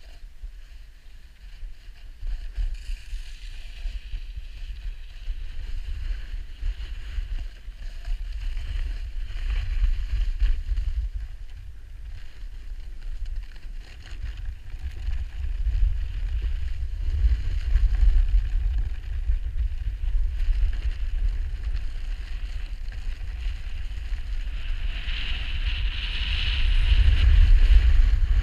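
Wind buffeting a GoPro's microphone on a fast run down a snowy slope: a heavy rumble that rises and falls, with the hiss of sliding over snow, which swells and is loudest near the end.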